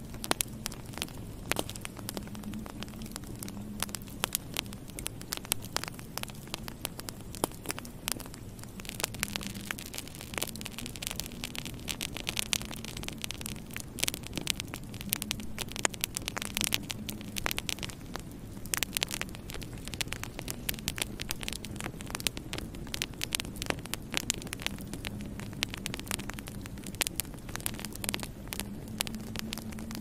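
Wood fire burning in a fireplace, crackling continuously with frequent sharp, irregular pops over a low steady hum.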